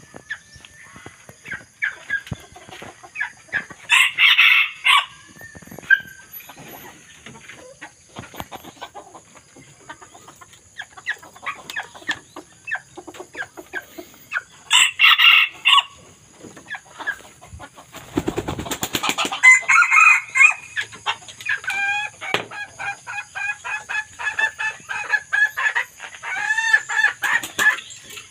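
Young red junglefowl cock crowing twice, short crows about ten seconds apart, then a brief rattling burst and a long run of rapid, repeated clucking calls.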